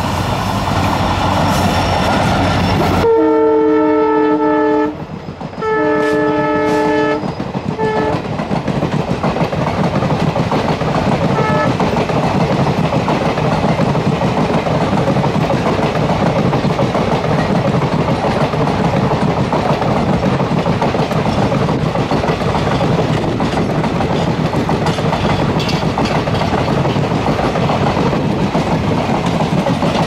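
EMD WDP4B diesel locomotive accelerating as it approaches, then sounding its multi-note air horn in two long blasts and a short toot, a warning to track workers. Its passenger coaches then roll past with a steady clickety-clack of wheels over the rails.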